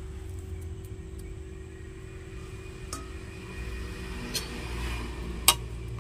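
A steel spoon clinks sharply once against a steel pot near the end, after a couple of fainter taps, over a low steady hum.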